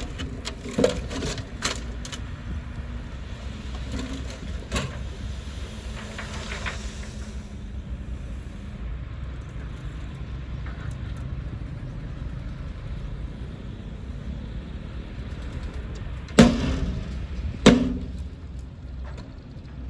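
Diesel engine of heavy earthmoving machinery running steadily, with scattered short knocks and two loud knocks about a second apart near the end.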